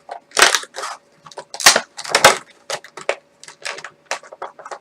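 Cardboard and plastic packaging of a Funko Pop vinyl box being wrestled open by hand: irregular bursts of rustling, scraping and crinkling.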